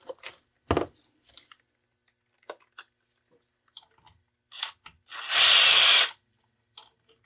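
Metal clicks and clinks of tools and a socket being handled, then a power drill runs in one burst of about a second, spinning out the rear band adjuster screw of a 42RE automatic transmission case.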